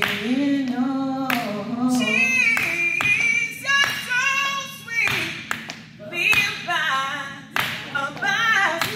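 A women's gospel group singing a cappella in a full, close-miked sound, with sharp hand claps falling every second or so through the song.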